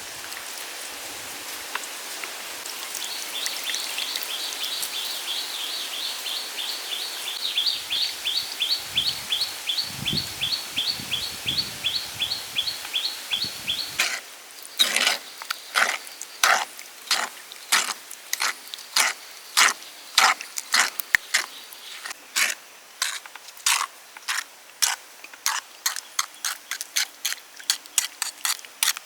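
A high two-note chirp repeated about three times a second for some ten seconds over a steady outdoor hiss. It cuts off sharply and gives way to a run of sharp clicks and clinks, about two a second, like utensils against dishes.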